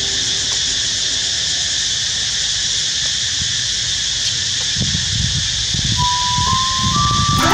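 Steady high-pitched buzz of insects in the trees, with low rumbling wind noise on the microphone in the second half. Electronic music notes start near the end.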